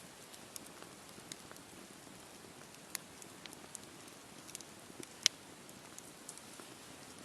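Wood campfire burning: a soft steady hiss with scattered sharp crackles and pops, the loudest pop about five seconds in.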